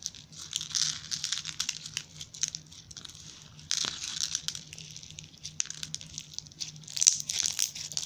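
Dry uncooked rice crackling and crunching as it is pressed and kneaded into slime by hand: quick, irregular crackles, loudest near the middle and again near the end.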